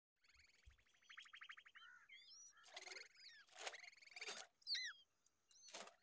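Small songbirds calling: a fast, dry trill lasting about a second and a half, then quick swooping chirps and down-slurred notes, with a few short harsh calls in between.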